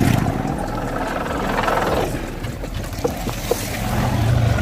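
Low, steady motor-vehicle engine rumble from road traffic, mixed with wind buffeting the microphone of a moving bicycle rider. The rumble grows stronger near the end.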